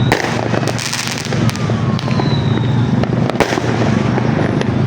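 Fireworks going off: sharp bangs with a dense burst of crackling about a second in, over a steady low hum.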